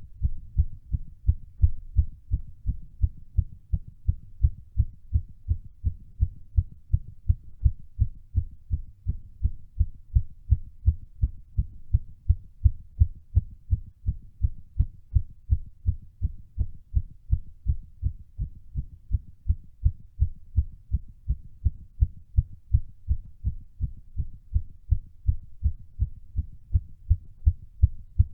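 Human heartbeat beating fast and steadily during a workout, heard as an even train of low thumps.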